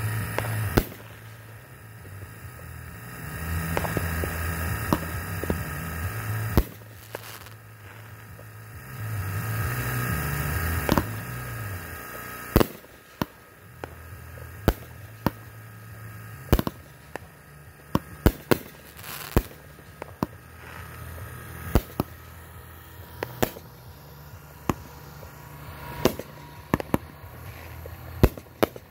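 Aerial fireworks shells going off in a run of sharp bangs. The bangs are few at first and come about one a second from about twelve seconds in, over a steady low hum that swells at times.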